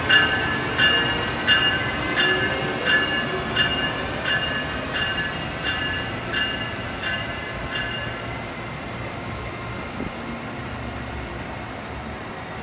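Amtrak ACS-64 electric locomotive's bell ringing about three strokes every two seconds, growing fainter as the train pulls away and stopping about eight seconds in, over the rumble of Amfleet passenger cars rolling past, which also fades.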